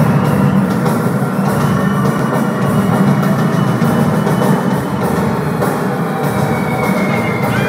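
Loud rock music with a drum kit, heard from the crowd through a phone's microphone.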